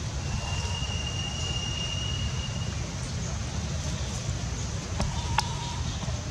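Newborn long-tailed macaque crying with a thin, high, steady squeal lasting about two seconds, over a steady low rumble. Two sharp clicks come near the end.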